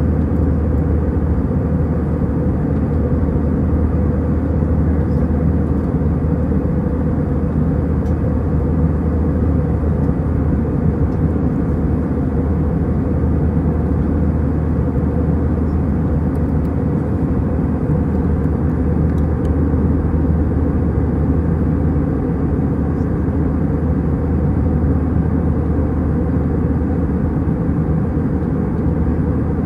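Cabin noise inside an Airbus A319-132 heard from a window seat: its IAE V2500 turbofan engines and the airflow make a steady, deep rumble that does not change.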